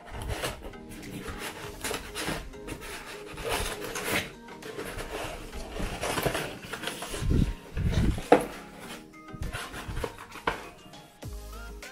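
Cardboard mailer box being opened by hand: the tear strip ripped along its perforation, the lid lifted, and paper leaflets rustling and scraping against the cardboard. A few soft knocks of the box come midway.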